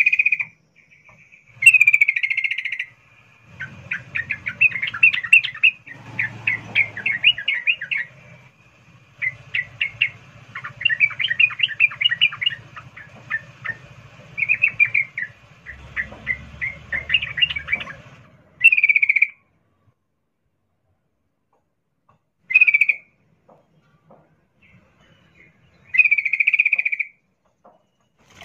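Female yellow-vented bulbul (trucukan) in breeding condition calling for a male: a long run of fast, bubbling, chattering phrases from about two to eighteen seconds in, then three short separate calls a few seconds apart.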